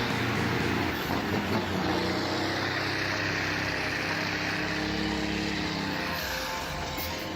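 Log truck engine running steadily.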